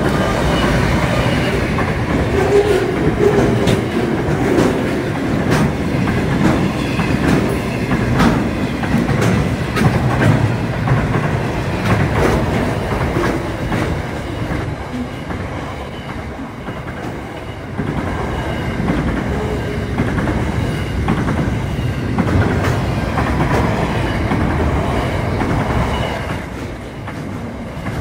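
Diesel-hauled intermodal freight train passing at speed, a steady loud rumble of container wagons with wheels clicking over the rail joints.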